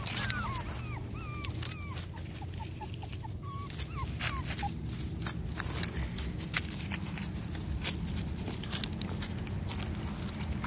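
Young Pomeranian puppies giving a series of short, high whines and yips in the first four or five seconds, with crackling of dry grass and fallen leaves under their feet throughout.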